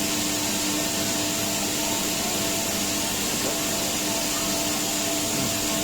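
Brush washing machine running steadily: an even mechanical hum with a couple of constant tones under a broad hiss.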